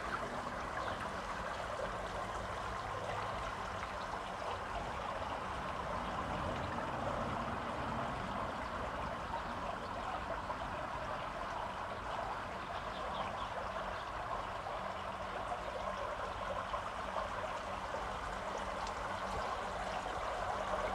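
Swimming-pool whirlpool bath bubbling and rushing steadily, its water churning without a break.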